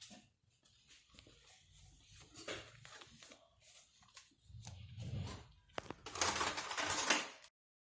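Scattered rustling and scuffling with faint clicks, then a louder rustle about six seconds in that cuts off suddenly near the end.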